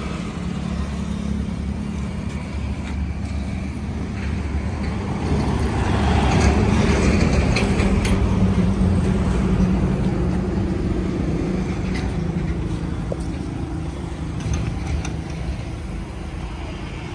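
Twin-cylinder diesel engine of a 20 kVA generator set running steadily with a fast low rumble, swelling louder for a few seconds about six seconds in.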